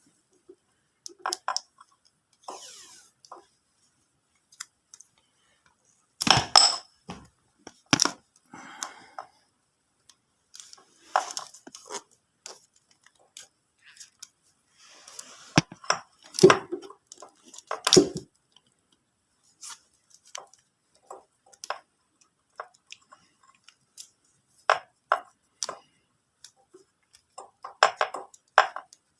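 Tape being pulled off the roll and wrapped around a motorcycle wiring connector to seal it against water: irregular short crackles and snaps with quiet gaps between them.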